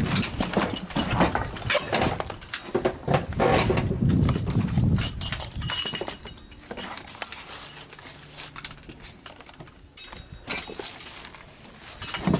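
Irregular knocks, clatter and rustling, as of someone moving about among junk, busiest in the first five seconds and sparser after.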